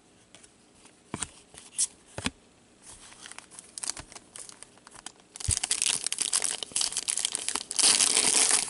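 A few sharp taps as trading cards are handled and set down, then the plastic wrapper of a Panini hockey card pack crinkling and tearing as it is picked up and ripped open, the crinkling starting about five and a half seconds in and getting louder near the end.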